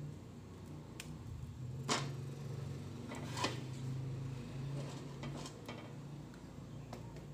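A woven bamboo tray of rice dough is set down onto a metal steamer pan and handled with a plastic spatula: several sharp knocks and scrapes, the loudest about two seconds in and again about three and a half seconds in, over a steady low hum.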